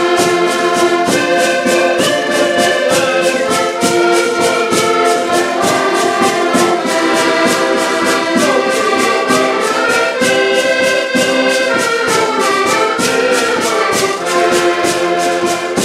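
Several diatonic button accordions playing a lively folk tune together, with a steady percussion beat of sharp strikes running under the melody.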